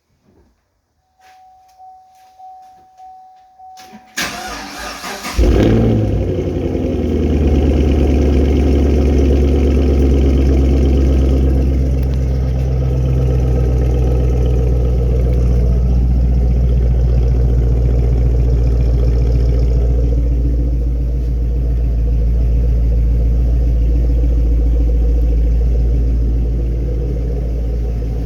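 2013 Chevrolet Camaro ZL1's supercharged 6.2-litre LSA V8 on its stock exhaust starting up: a faint steady tone, then the starter cranks briefly about four seconds in and the engine catches with a loud flare about a second later. It settles into a steady, low, loud idle.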